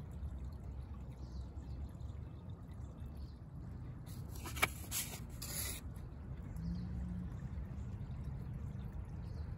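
Steady low outdoor background rumble, with a short rustle of paper drawings being handled about four seconds in, lasting about two seconds, with a small click in the middle.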